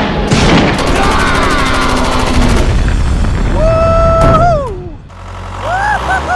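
Cartoon action sound effects: loud booms and a fast rattle like gunfire, then a long whistling tone that holds and falls in pitch, and a short wavering tone near the end.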